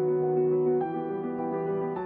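Soft background music of sustained chords, changing to a new chord just under a second in.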